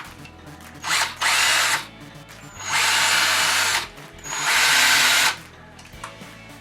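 Ryobi ONE+ R18DD3 18 V cordless drill-driver run free with no load in three short trigger pulls, each about a second long, starting and stopping sharply.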